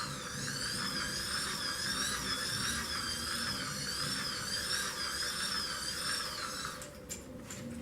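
Hand-cranked microwave turntable motor run as a small generator, whirring like a small power tool, its pitch wavering up and down about once a second as the crank speed varies. It stops about seven seconds in, followed by a few light clicks.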